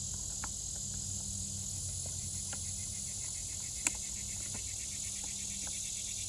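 Crickets chirping steadily in the background over a low steady hum, with light scattered clicks and taps and one sharper click about four seconds in.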